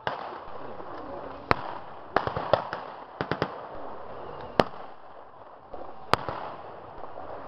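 Blank gunfire from a reenactment skirmish: about a dozen sharp shots at irregular intervals, with a quick ragged cluster a couple of seconds in.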